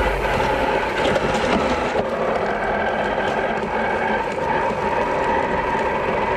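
Redcat Gen8 Axe Edition 1/10-scale RC crawler driving, its brushless motor and gears giving a steady whine over a rattling drivetrain, picked up by a camera inside its cab.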